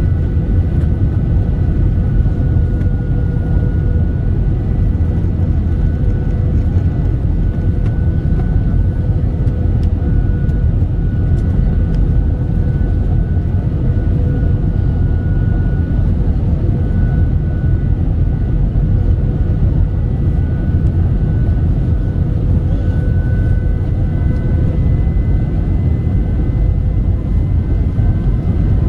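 Airbus A320 cabin noise on the landing approach: a steady, even rumble of engines and airflow, with a thin steady whine above it.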